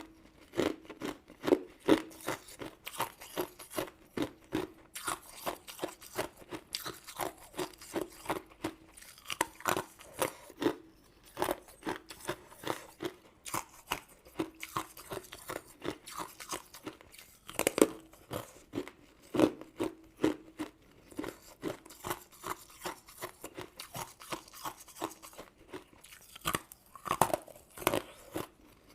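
Close-miked eating: crisp, irregular crunching and chewing of sugary crystal candy and jelly, several crunches a second with a few louder bites.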